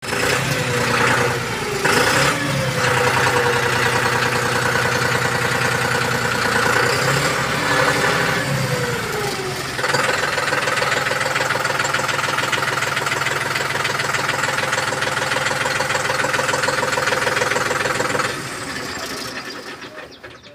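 John Deere 5210 GearPro's turbocharged diesel engine running. Its pitch shifts up and down a couple of times in the first ten seconds, then it holds a steady speed and drops back about eighteen seconds in.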